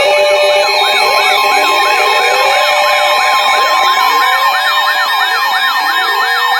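Several NOAA weather alert radios sound their alarms at once for a severe thunderstorm warning. Overlapping warbling siren tones rise and fall about three times a second, with slower rising sweeps beneath them. A steady alert tone joins about a second in.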